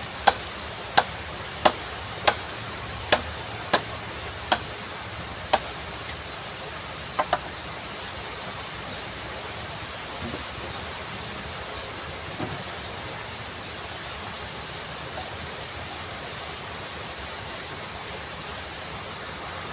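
Machete chopping green bamboo: about nine sharp strikes, roughly one every two-thirds of a second, over the first third of the stretch, then the chopping stops. Under it, a steady high-pitched drone of insects.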